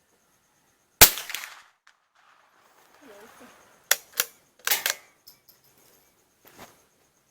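A single crack from an Anschutz 1418 bolt-action .22 LR rifle about a second in, with a short decaying tail. A few seconds later comes a quick series of sharp metallic clicks, typical of the bolt being worked to eject the case and chamber the next round. A few faint clicks follow near the end.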